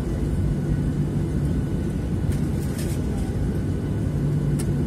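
Jet airliner engines heard from inside the cabin while taxiing: a steady low rumble with a steady hum that grows stronger near the end. A few faint clicks in the cabin about halfway through.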